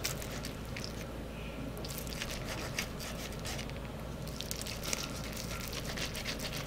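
A knife slicing down along the breastbone of a roast chicken, giving a string of small wet crackles and squishes as the blade cuts through charred skin and juicy meat, over a low steady hum.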